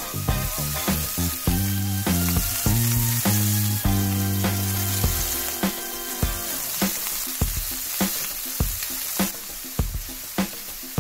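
Steak searing in a hot cast-iron skillet, a steady sizzle. Background music with a beat and bass notes runs over it; the tune drops away about six seconds in, leaving mostly the beat.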